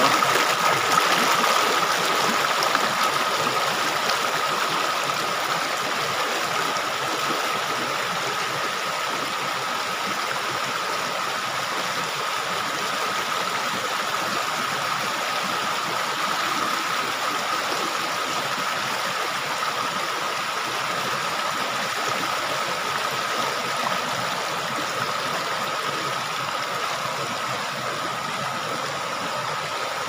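Mountain stream rushing and splashing over rocks, a steady water noise that is a little louder in the first few seconds. A steady high tone runs underneath it.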